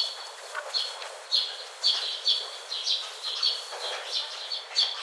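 Birds chirping: short, high chirps repeating about twice a second.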